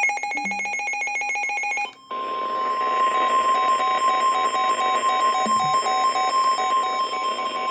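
A weather radio receiver's built-in alarm beeping in a fast warble, which cuts off about two seconds in. It is followed by the NOAA Weather Radio 1050 Hz warning alarm tone: a single steady high tone over radio static, which signals that a warning message is about to be broadcast.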